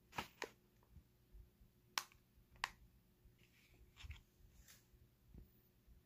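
A handful of sharp, brief clicks and light taps, about six in all, against near silence, from hands handling plastic edible pouches.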